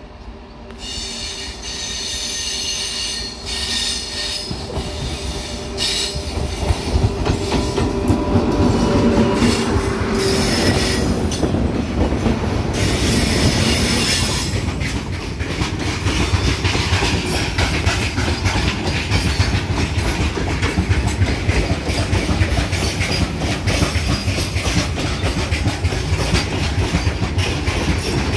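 Goods train hauled by twin WAG9 electric locomotives approaching and passing close by: a high whine over a rumble that swells as the locomotives arrive, about eight seconds in. Then a steady rumble and a rapid clatter of loaded freight wagon wheels over the rail joints.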